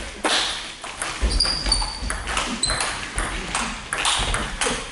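Table tennis rally: the ball clicks sharply off the bats and the table in quick, irregular succession. A few short high squeaks come through in the middle.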